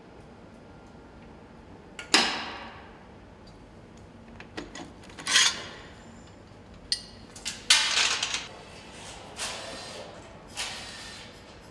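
Metal knocks and clinks of engine parts being handled and set into an aluminium engine block during hand assembly. A sharp knock with a short ring comes about two seconds in, then more scattered clanks, with a quick cluster past the middle.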